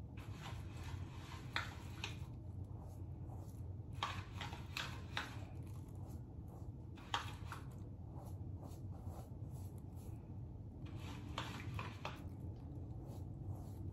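Disposable plastic glove and small plastic mixing bowl being handled while bleach mixture is worked into a mannequin's wet hair: faint rustling and scraping in a few short bursts, over a low steady hum.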